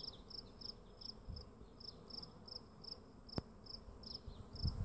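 Faint, even insect chirping, high-pitched, about three chirps a second, with a single sharp click about three and a half seconds in.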